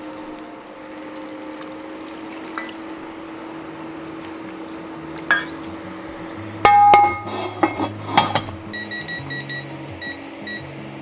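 Kitchenware clinking and clattering, loudest in a burst of knocks with a short ringing about seven to eight seconds in, over background music.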